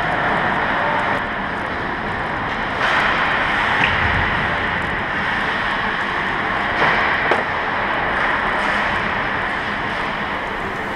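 Ice hockey play heard at rink level: a steady hiss of skates scraping the ice, with a few sharp clicks of sticks and puck about three, four and seven seconds in.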